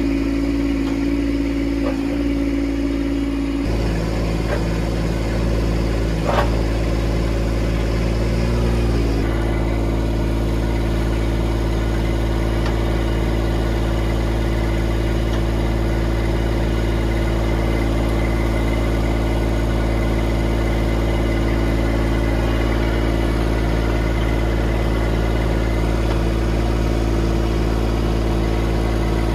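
Kubota LX2610 compact tractor's three-cylinder diesel engine idling steadily, its note shifting slightly a few seconds in and again near ten seconds, with a single light knock about six seconds in.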